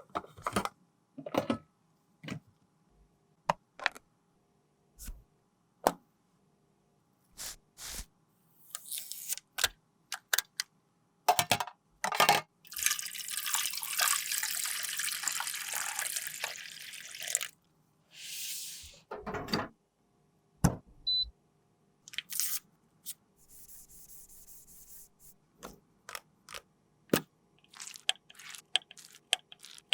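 Close-up handling of cosmetic containers and tools: scattered sharp taps and clicks. A steady hiss lasts about five seconds near the middle, with shorter hisses later.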